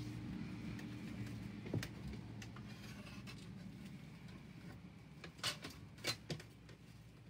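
Pen and paper handling on a craft table: a few light taps and clicks, one about two seconds in and a group around five and a half to six seconds in, over a low steady hum that slowly fades.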